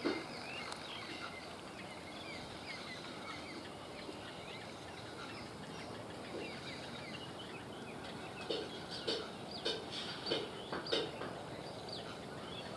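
Birds chirping and calling over faint rural background noise. A run of about half a dozen sharper, louder calls comes in the last few seconds.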